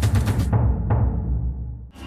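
Background music with a heavy low drum beat; its upper sounds cut away about half a second in and it fades out near the end.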